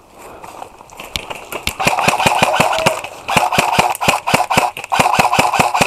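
Airsoft M416 replica rifle firing on full auto: rapid strings of sharp clicking shots, about eight to ten a second, in two or three bursts with short pauses between them.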